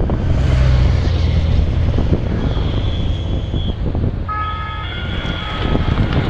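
Wind buffeting the microphone and the low rumble of a motorcycle passing close by, fading after the first couple of seconds. In the second half a thin high steady tone sounds, followed by a brief horn-like chord.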